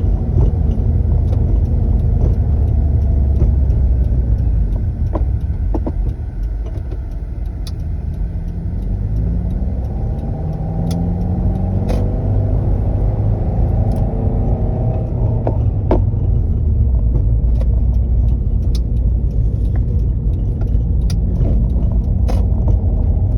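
Car running with a heavy low rumble and scattered short knocks and clunks. The engine note rises about eight seconds in and then holds for several seconds. The clunking persists even though the clutch kit, release bearing and clutch fork have been replaced.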